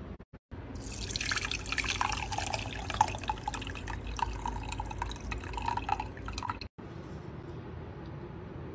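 Hot herbal infusion poured from a pot through a metal mesh strainer into a glass jug: a splashing stream of liquid that starts about a second in and cuts off suddenly after about six seconds.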